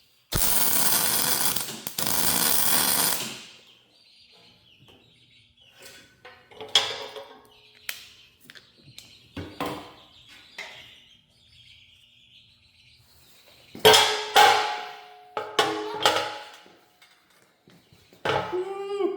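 A loud, steady hiss-like noise for the first three seconds or so, broken twice for a moment, then scattered metallic clinks and clanks with a short ring, loudest in a cluster about two thirds of the way in, as steel parts and tools are handled during a hydraulic cylinder repair.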